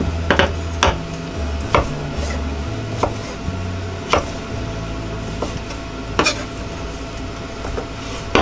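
Kitchen utensils knocking against cookware: about nine sharp clacks at irregular intervals during cooking.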